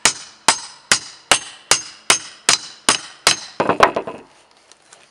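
Hammer striking a steel flat pry bar in a steady rhythm, about nine sharp blows at roughly two and a half a second, driving it in behind rotted masonite clapboard siding. Just after the last blow, the punky board breaks out with a short crunching crackle.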